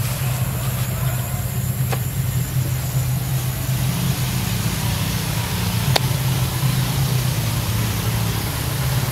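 Steady low hum of a running motor, like an idling engine, with two short faint clicks about two and six seconds in.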